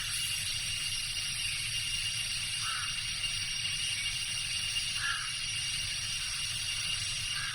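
Tropical jungle ambience: a steady chorus of insects with a continuous high drone, under which a short call repeats about every two and a half seconds.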